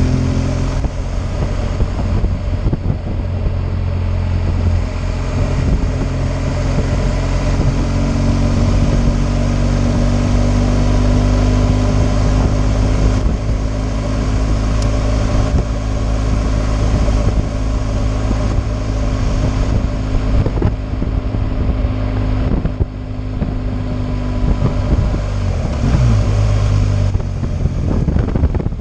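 BMW R 1200 GS flat-twin boxer engine running as the motorcycle cruises, its pitch drifting gently up and down with the throttle, under a steady rumble of wind on the microphone.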